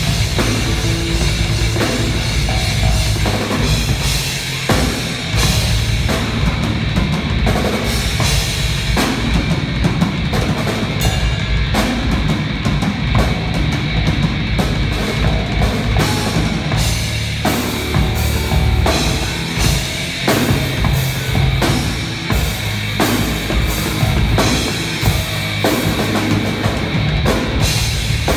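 Rock band playing live on electric guitar, bass guitar and drum kit, with the drums prominent throughout.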